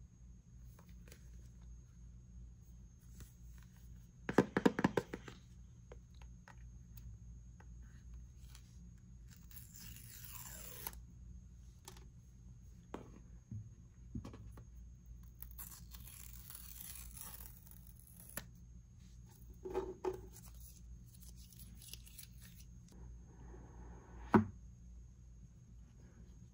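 iPhone 14 Pro Max box being unboxed by hand: a quick tearing rip about four seconds in, like the paper seal strips pulled off. Then stretches of sliding, rustling packaging and a few light knocks as the box and its contents are handled.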